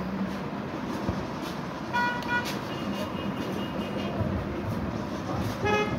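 Steady street traffic noise with vehicle horns sounding in short toots, one about two seconds in and another near the end.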